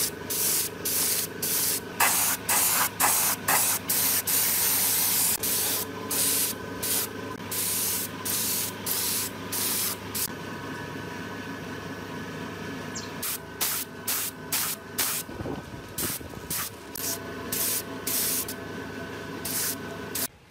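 Pneumatic gravity-feed paint spray gun spraying in many short hissing bursts as the trigger is pulled and released, with longer continuous sprays in the first half and shorter, sparser bursts later. A steady hum runs underneath.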